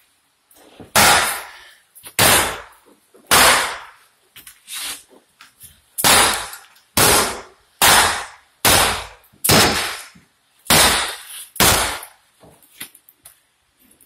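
Heavy hammer blows on metal, about ten loud clanging strikes at roughly one a second, with a few lighter knocks near the end.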